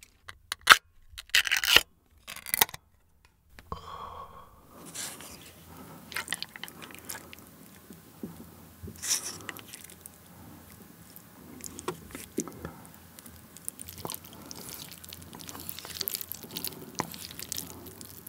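Chopsticks scraping canned tuna out of its tin and mixing it into a bowl of ramen noodles: soft wet scraping and squishing with light clicks of wood on metal and ceramic. A few sharp, loud clicks come in the first few seconds.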